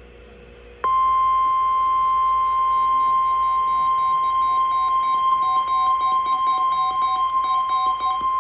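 Emergency alert attention tone: a single steady high tone, the NOAA Weather Radio 1050 Hz warning alarm, starting about a second in and holding unbroken. It signals that a warning message is about to be read.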